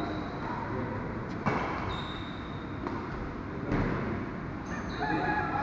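Badminton rally: two sharp racket hits on the shuttlecock, about a second and a half in and again near four seconds, with short high squeaks of shoes on the court floor between them.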